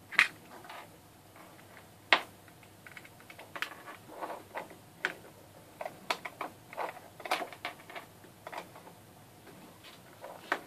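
Irregular clicks and plastic rattles of USB plugs and cables being pulled out of and pushed into a Raspberry Pi and USB-to-serial adapters. There are sharper clicks at the start and about two seconds in, and a run of lighter clatter after that.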